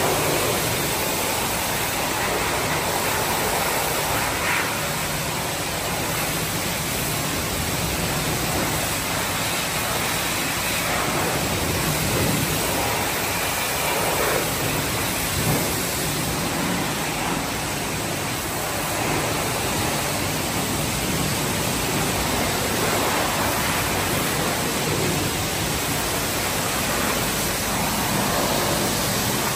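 High-pressure car-wash wand spraying water onto a minivan's wheel and body: a steady hiss of spray that rises and falls slightly as the jet moves.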